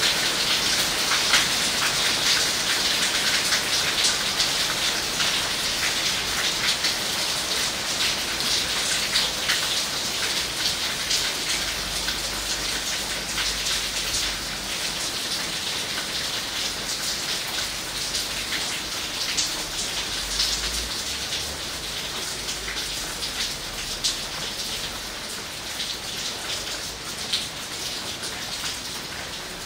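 Heavy rain falling on foliage, a dense steady hiss with many individual drops ticking on the leaves close by. It grows slowly quieter as the downpour eases.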